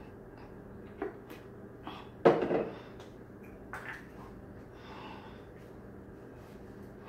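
Handling sounds from a plastic syrup bottle and a small object being set down on a wooden table: a light click about a second in, then one louder knock with a short rattle a little after two seconds, and a few softer clicks. A soft breath comes later.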